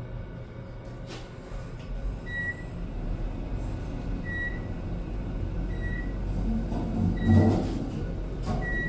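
Fast passenger elevator car travelling upward: a steady low rumble of travel, with five short high beeps spaced about one and a half to two seconds apart, and a louder burst of noise near the end.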